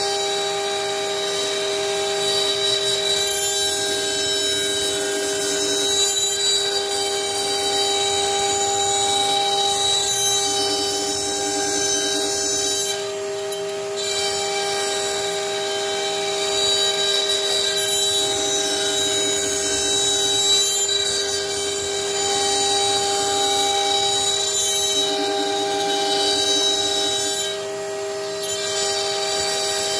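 CNC router spindle running with a steady high whine while its bit routes a groove in a wooden board. The cutting noise comes and goes every few seconds as the bit travels along the groove.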